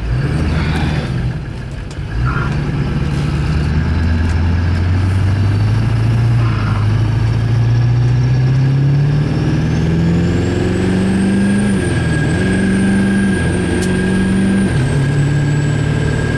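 Duramax V8 turbo diesel pickup accelerating under load with its newly installed S366 turbocharger. The engine note climbs, then steps down and back up twice near the end as the transmission shifts. From about two-thirds of the way in, the turbo spooling up adds a high, thin whistle that rises and then holds steady.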